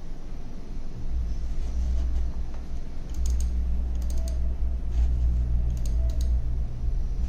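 Quick double-clicks of a computer's pointer button in three short sets, about three, four and six seconds in, over a steady low hum.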